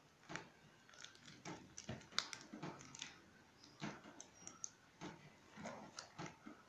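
Faint, irregular clicks and crinkles of a small plastic margarine packet being squeezed and handled over a steel bowl of flour.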